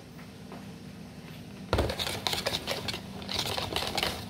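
A wire whisk beating a flour-and-milk batter in a plastic bowl: a thump about two seconds in, then quick, rapid clicking and scraping strokes.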